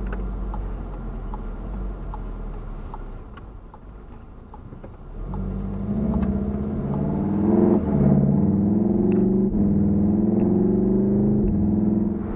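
Volkswagen Golf 7 R's 2.0-litre four-cylinder engine running low and steady, then pulling hard from about five seconds in. The revs climb, drop at a gear change about eight seconds in, and climb again.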